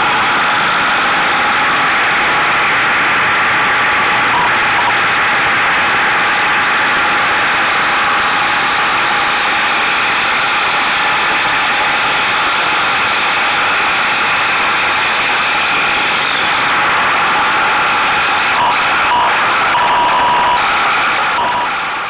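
Buell motorcycle ridden at speed through curves: a steady, loud rush of wind noise on the mirror-mounted camera's microphone, with the engine running underneath. The camera shakes with the bike's vibration.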